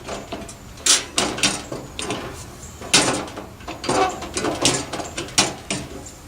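Irregular metal clacks and knocks, about a dozen, as the fuel tank of a Coleman 414 camp stove is pushed and jiggled against the stove's case and will not seat. The owner puts this down to the tank and case being out of alignment.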